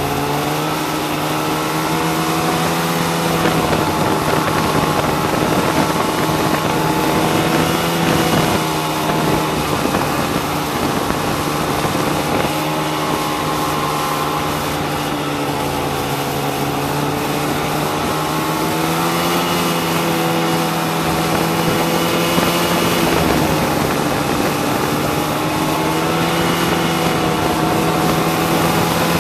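Snowmobile engine running under way, its pitch rising and falling as the throttle changes, over a steady rushing hiss.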